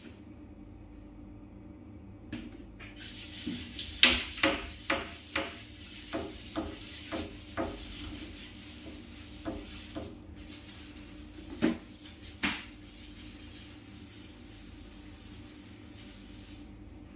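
Sponge scrubbing and wiping kitchen surfaces: a steady rubbing hiss with a run of quick strokes about twice a second, then two louder strokes later on.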